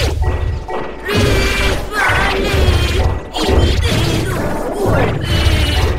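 Heavily distorted, bass-boosted cartoon soundtrack from a "Preview 2" effects edit. It comes in choppy bursts about once a second, with sliding, warped pitched sounds over a heavy bass.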